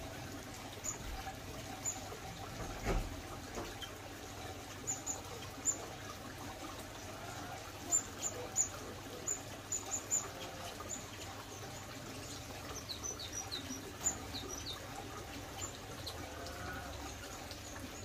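Steady trickle of running water, with short, high chirps from small aviary finches scattered over it. The chirps come thickest about eight to ten seconds in, and a few quick falling notes follow around thirteen seconds.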